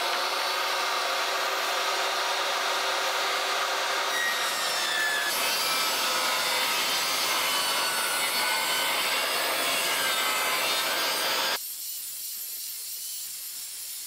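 Portable jobsite table saw ripping a long tongue-and-groove board lengthwise, the blade cutting steadily through the wood; about twelve seconds in the sound drops quieter.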